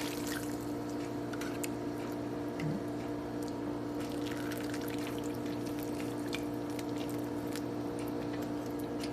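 Hot broth being ladled and dripping into a bowl of pho, with small clicks of the ladle, over a steady low hum.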